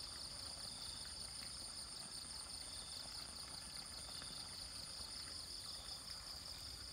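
Steady chorus of insects, a fast, even pulsing chirr high in pitch, over a faint sound of running water.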